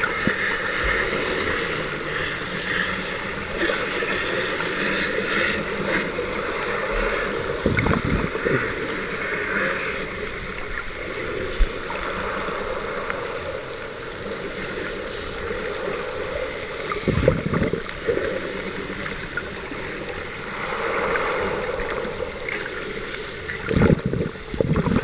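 Muffled, steady water noise picked up by a camera held underwater while snorkeling, with a few dull low thumps scattered through.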